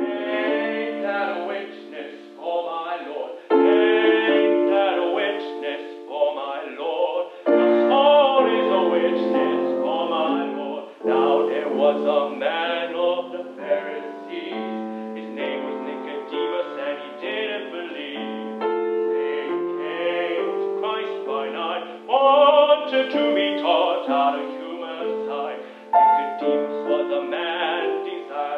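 A man singing a classical art song in an operatic style, with vibrato, accompanied by a grand piano. The recording sounds thin, with no bass or top.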